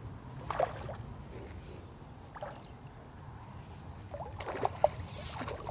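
Light water splashing from a hooked F1 carp fighting at the surface on pole elastic. The splashing is louder about four and a half seconds in.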